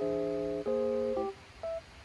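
Background music: a plucked guitar playing a short run of chords, one after another, with a single short note near the end.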